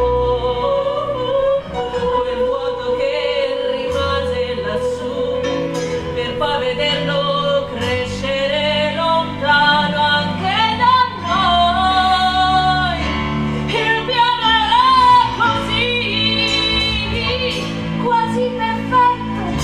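Women singing a musical-theatre number with instrumental accompaniment.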